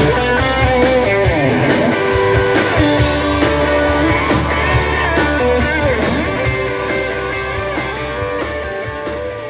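Live band playing a guitar-driven rock song with a singer and a steady beat, gradually fading over the last few seconds.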